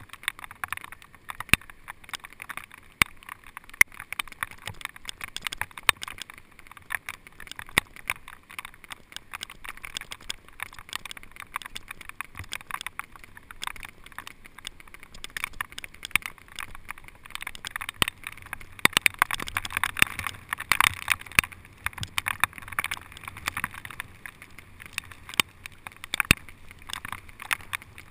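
Bicycle rolling along a wet paved path, heard from a bike-mounted camera: a steady hiss of tyres and spray on the wet surface with frequent irregular sharp ticks and knocks. The hiss grows louder for a few seconds past the middle.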